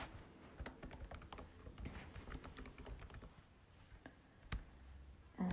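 Faint computer keyboard typing: quick, irregular key clicks as text is typed, thinning out past the middle, with one sharper single click near the end.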